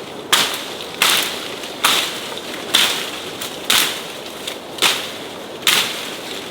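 A hand tool chopping into the ground, seven strokes about a second apart, each a sharp hit that dies away quickly.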